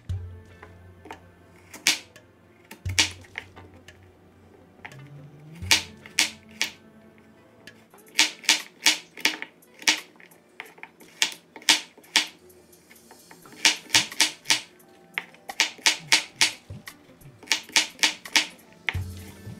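Kitchen knife chopping carrots into small dice on a wooden cutting board: sharp taps of the blade on the board in quick runs of several strokes, with short pauses between runs.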